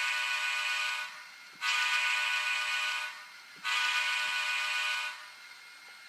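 Digitrax sound decoder in an Atlas SD7 model diesel locomotive sounding a multi-chime air horn through its two speakers: three long blasts of about a second and a half each, with short gaps between.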